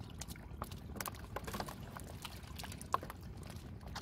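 Hands sloshing and splashing through shallow muddy water while groping for fish, a run of small irregular splashes with one sharper click about three seconds in.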